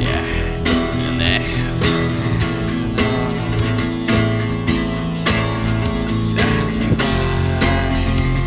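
Band music: strummed guitars over bass and drums with a steady beat.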